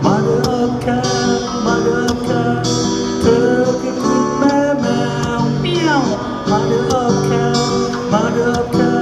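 Acoustic guitar music, strummed and plucked, with a falling pitch slide about six seconds in.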